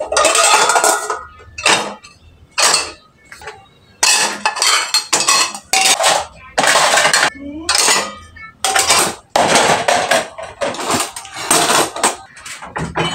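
Dishes and cutlery clattering and clinking: about a dozen irregular knocks and scrapes as crockery and utensils are handled, some strokes ringing briefly.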